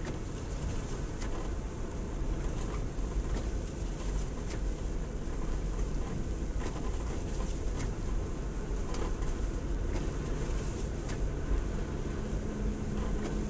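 Ford Explorer driving slowly on a snow-covered road, heard from inside the cabin: a steady low rumble of engine and tyres with occasional faint clicks, and a steady hum rising out of it near the end.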